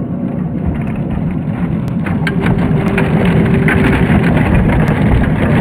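Tamiya Globe Liner RC truck running, its MFC-01 sound unit playing a steady diesel engine rumble through the model's speaker, with scattered clicks as the tyres roll over dirt and stones. It grows a little louder as the truck passes close.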